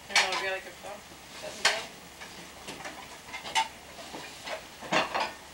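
Food sizzling in frying pans on a gas stove, with several sharp clinks of dishes being taken down from a cupboard.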